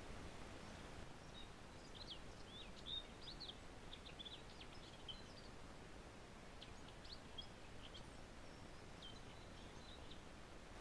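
Faint chirps and twitters of small woodland birds, a scatter of short, thin high notes over a steady background hiss.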